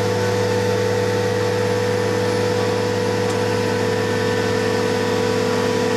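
Diesel engine of a Terex all-terrain mobile crane running steadily at idle, an even hum that holds the same pitch throughout.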